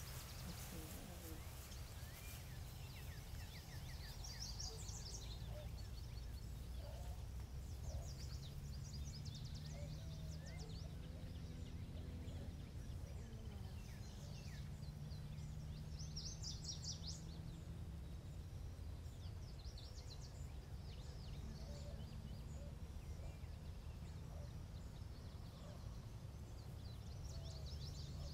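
Outdoor morning ambience: birds singing in short high-pitched phrases every few seconds over a steady low rumble.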